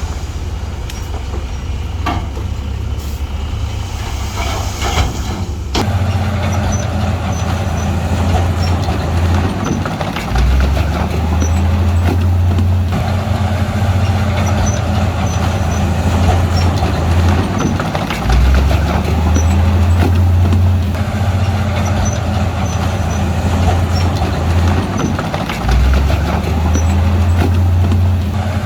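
Bulldozer's diesel engine running under load with a steady low drone. Its note dips and picks up again three times, about every eight seconds, as the machine works. A few sharp clanks come in the first few seconds.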